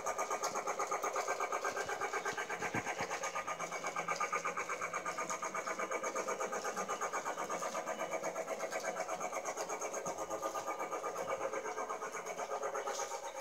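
Toy train running around a circular track: a steady mechanical whir with a rapid, even pulse of about six or seven beats a second, growing quieter near the end.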